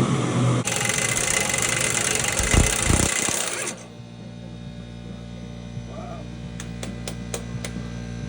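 A motor-driven power tool running loudly, cutting off abruptly about three and a half seconds in. A quieter steady hum follows, with several sharp clicks.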